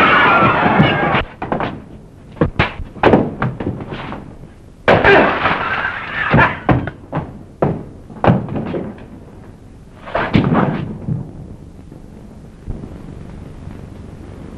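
A rapid, irregular string of thuds and knocks with bursts of shouting voices between them, as in a staged fistfight. After about eleven seconds it settles into a steady low rushing noise.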